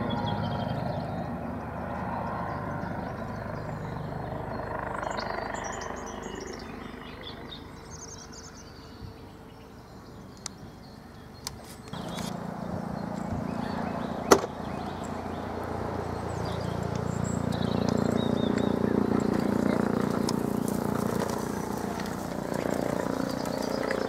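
Eurocopter EC135 P2 police helicopter flying overhead, its rotor and engine sound fading away, then jumping up abruptly about halfway and swelling again as it comes back toward the listener. A single sharp click stands out a little past the middle, and faint bird chirps come through while the helicopter is distant.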